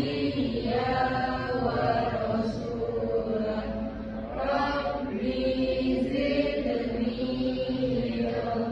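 A group of voices reciting a prayer together as a slow chant, with long held syllables.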